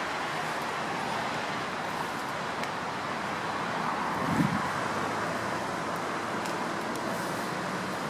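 Steady hum of distant road traffic, with a single dull bump about four and a half seconds in.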